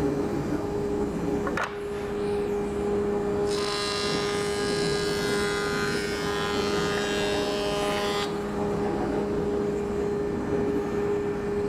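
Felder CF741sp combination machine running as a jointer with a steady hum. From about three and a half seconds to about eight seconds a thin rough-sawn board passes over the cutterhead, a bright cutting hiss over the hum, taking a light skim pass to flatten the face. Then the machine goes back to its steady hum.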